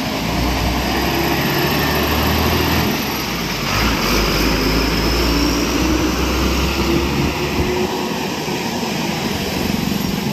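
Passenger bus engine running under load as the bus pulls away and passes close by. A low rumble with road noise, which fades over the last couple of seconds as the bus moves off.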